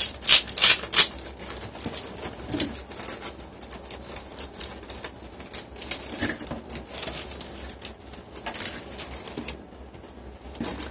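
Bubble wrap and plastic packaging around a new laptop LCD panel rustling and crinkling in irregular bursts as it is handled, loudest in the first second.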